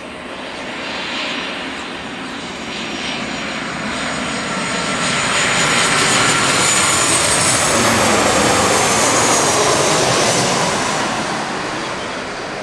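Boeing 737-900ER jet airliner on landing approach, its CFM56-7B turbofan engines growing louder as it flies low overhead, peaking about two-thirds of the way through with a high whine that slides down in pitch as it passes, then fading as it descends toward the runway.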